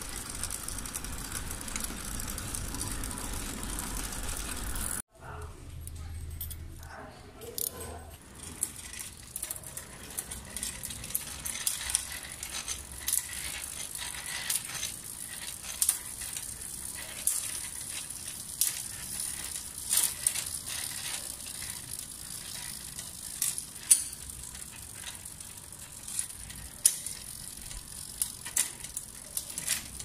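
A road bike's chain being turned by hand through the cassette and a Shimano 105 rear derailleur on a repair stand while the gears are adjusted. The chain rattles with many irregular sharp clicks after a break about five seconds in.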